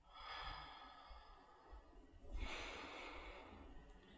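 A woman breathing slowly and deeply, two long, faint breaths about two seconds apart, each fading out gradually.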